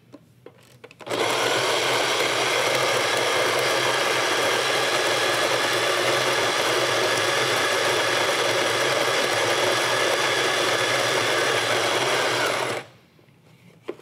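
Solis Scala Zero electric burr coffee grinder running steadily while grinding coffee beans, its motor starting about a second in and cutting off near the end. A few light clicks come before it starts.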